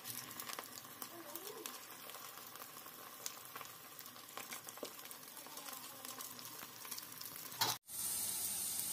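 Battered egg fingers deep-frying in hot oil in a steel kadai: a dense sizzle full of small crackles and pops, with a spoon stirring through them. Near the end the sound drops out for a moment and returns as a steadier, louder hiss of frying.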